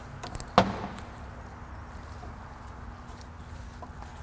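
A single sharp metallic clank with a short ring about half a second in, then a low steady hum with a few faint clicks as a tap in a T-handle tap wrench is turned into an aluminium transmission case to cut fresh threads.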